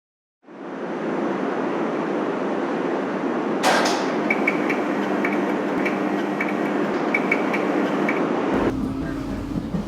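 Berlin U-Bahn train noise fading in: a steady rushing rumble with a sharp clank about three and a half seconds in and several brief high squeaks after it; a deeper low rumble sets in near the end.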